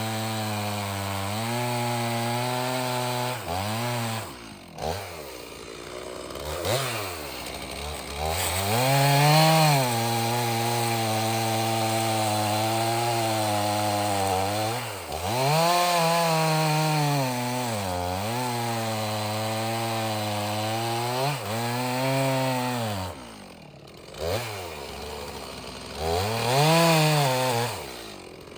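Stihl MS 391 two-stroke chainsaw cutting firewood: the engine holds a steady pitch under load for long stretches, revs up high when the chain comes free, and drops back toward idle several times between cuts.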